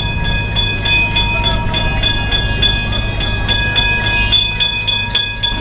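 Kolkata tram's warning bell rung over and over, about three ringing strikes a second, over a low steady hum. The tram has no horn, so the driver sounds the bell to warn off a car parked on the track.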